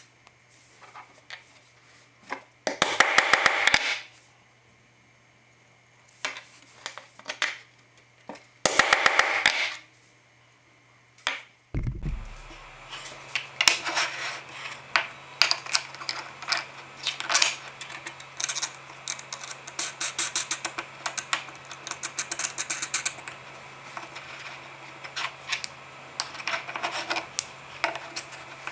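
Workshop handwork on small pieces. There are two loud bursts of rapid clicking, each about a second long, then a low thump. After that comes a steady low hum under a quick run of light taps and clatters.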